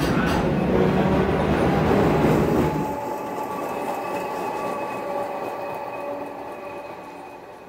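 Old-style streetcar running on its rails, heard from inside the wooden car as a loud low rumble. About three seconds in this gives way to the quieter sound of the streetcar passing in the street: a steady whine that fades as it moves away.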